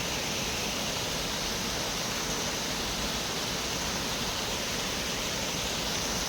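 Shiraito Falls pouring down its cliff face: a steady, unbroken rush of falling water.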